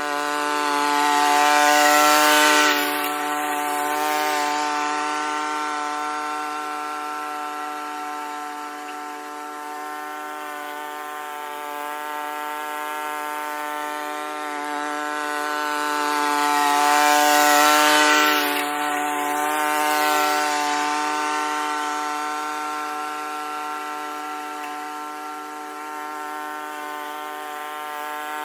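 Honda self-propelled walk-behind lawn mower running steadily while cutting grass. It grows loudest as it passes close about two seconds in and again around two-thirds of the way through, then fades as it moves away.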